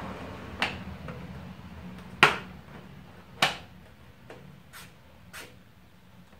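Plastic drive-bay covers being snapped into the front of a computer tower case: three sharp clicks, the loudest about two seconds in, then three fainter clicks.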